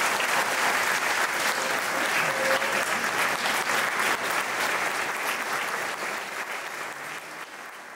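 Audience applauding, a dense patter of many hands clapping that dies away steadily over the last few seconds.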